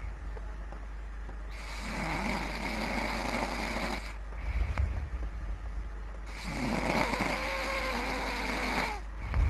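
Person snoring heavily: two long snores of about two and a half seconds each, one starting about a second and a half in and the next just past six seconds, with a short low rumble between them.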